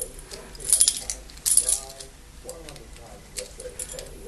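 A bunch of metal dimple keys jingling and clinking as they are handled, in two short bursts about a second and a second and a half in, with lighter clicks after.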